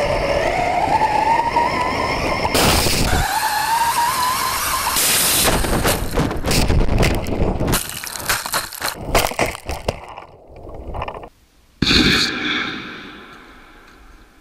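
Electric motor of a 1:10 RC truck whining and rising in pitch as it accelerates over gravel, with a short rocket blast about two and a half seconds in. Then a rapid clatter of impacts as the car tumbles and breaks apart, and near the end another sudden rocket blast that fades away over a couple of seconds.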